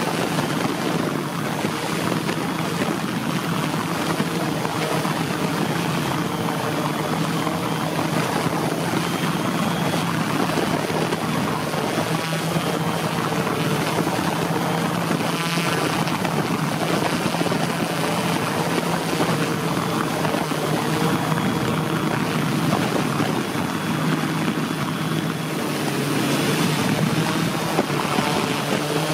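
Align M480L multicopter's electric motors and propellers humming steadily in flight, a constant whir with several held tones.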